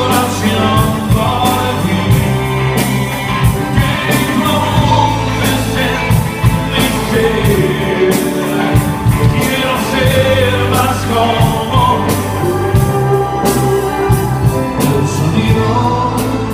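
A song with singing over a band, with a regular drum beat and a steady bass line.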